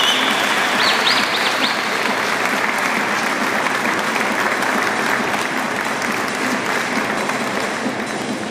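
Audience applauding steadily, with a few short high chirps about a second in.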